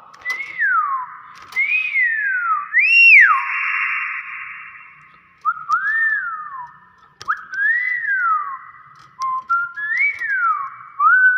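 Hill myna giving a string of loud whistles, about eight in all, each a quick rise in pitch followed by a long downward slide, with a breathy hiss under several of them.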